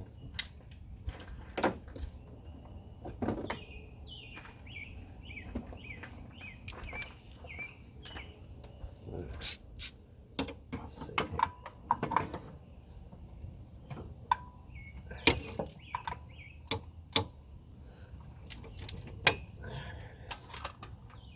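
Metal tools clinking and clicking irregularly: socket extensions and a socket wrench being fitted together and worked down into the engine's spark plug well. Birds chirp in short repeated series in the background.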